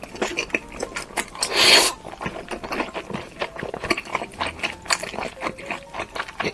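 Close-up eating sounds: a loud crunchy bite about one and a half seconds in, among a steady run of small clicks from chewing.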